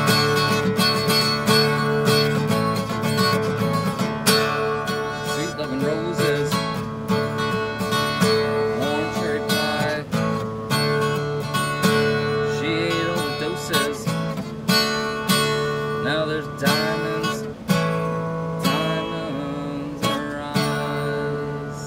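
Acoustic guitar strummed in a steady chord pattern, each strum ringing on, slowly getting quieter toward the end.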